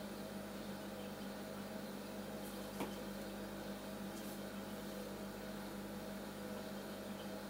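Steady low electrical hum over a faint hiss, with one light click about three seconds in.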